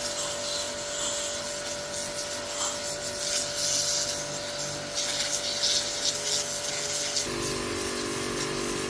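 A power tool runs steadily, abrading metal: a steady motor whine under a rough, hissing scrape. Its tone changes about seven seconds in, as lower notes join.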